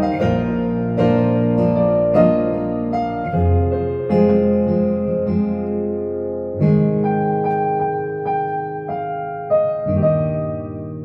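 Yamaha Clavinova CVP-805 digital piano played in a split-keyboard setup with piano and guitar voices. It plays a slow song with sustained chords struck every second or two, and one chord is held longer through the middle.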